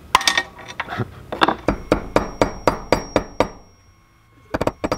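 Hammer striking a small cast-lead part on the steel anvil face of a bench vise, pounding it into shape. About four ringing metallic strikes a second, a brief pause, then a quicker run of blows near the end.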